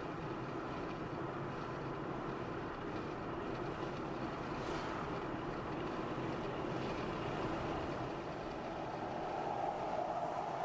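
Steady road and engine noise of a car driving on a highway. A faint humming tone comes up near the end.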